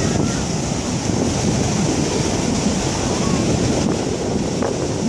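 Sea surf breaking and washing up a sandy beach, a steady roar, with wind buffeting the microphone.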